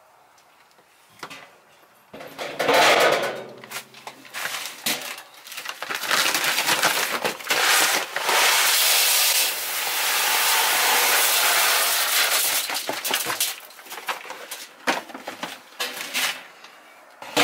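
Chicken feed pellets poured from a paper bag into a galvanized steel trash can, a steady rushing hiss for several seconds in the middle. Before it the metal lid is lifted off with a clatter, and near the end there are a few light metal clicks as a can lid is handled.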